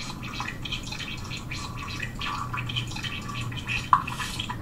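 Small plastic Lego pieces being handled and sorted, making irregular light clicks and rattles, with one sharper click about four seconds in.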